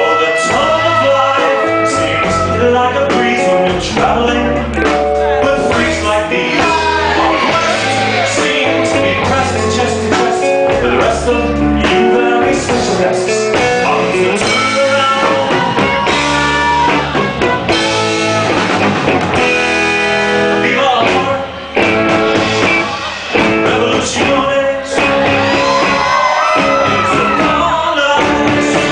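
A live band playing a bluesy rock number with a man singing lead into a microphone.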